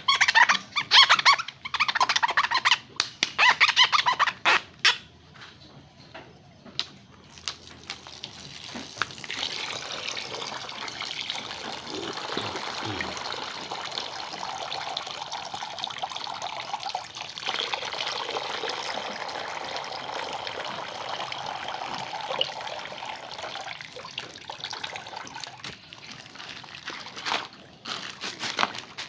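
Loud irregular crackling and clatter for the first few seconds, then a steady rush of running water for most of the rest, easing off near the end.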